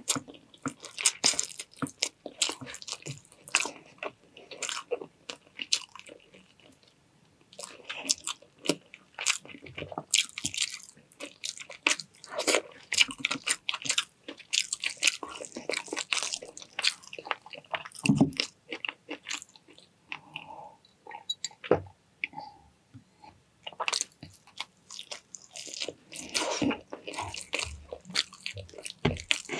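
A person chewing and crunching food close to the microphone, with wet mouth clicks and smacks coming in quick irregular runs. There is a quieter lull about five to seven seconds in.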